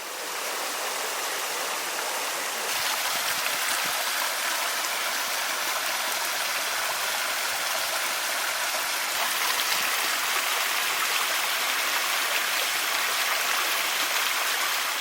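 Steady rushing of flowing water, fading in at the start.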